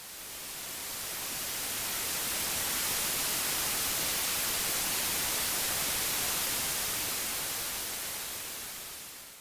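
Steady static hiss like white noise, swelling up over the first couple of seconds and fading away near the end.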